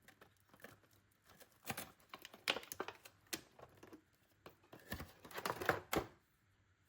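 Irregular light clicks and taps of small hard objects being handled, in loose clusters with short rustles between.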